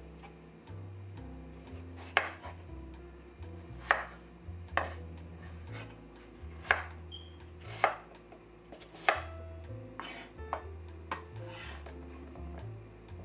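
Chef's knife cutting peeled raw potatoes on a wooden cutting board: about ten sharp knocks of the blade meeting the board, spaced irregularly about a second apart, over soft background music.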